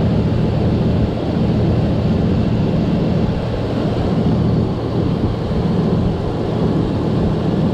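Truck engine idling steadily as a low, even rumble, running with its newly installed 4L60 automatic transmission during fluid filling.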